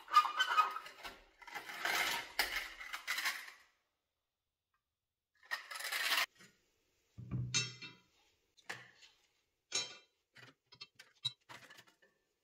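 A clear plastic parts-organizer drawer slid out with loose steel balls rattling inside it, then a string of separate, sharp metallic clinks as the small steel balls are handled and set down one by one.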